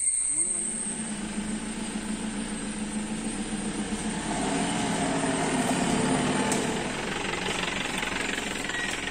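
Off-road 4x4 vehicle's engine running steadily. Its note rises briefly at the start, grows louder around five to six seconds in, then eases off a little.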